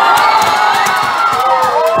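Arena crowd cheering and shouting together, many voices holding loud calls at once.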